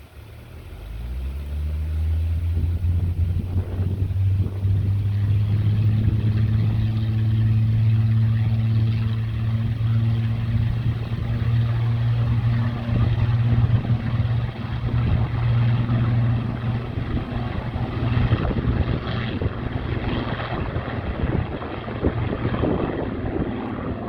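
Supermarine Spitfire Mk XIV's Rolls-Royce Griffon V12 engine opening up to takeoff power. Its pitch and loudness rise over the first two seconds, then it holds a loud, steady drone that grows rougher and brighter in the last few seconds.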